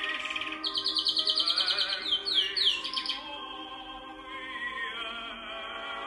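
A canary singing rapid, buzzy trills and then a run of quick downward-sweeping notes over opera music with a singer's wavering voice. The bird's trills end about three seconds in, leaving the opera singing.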